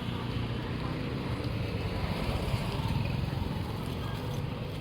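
Steady street traffic noise: a low, even engine rumble with no distinct events.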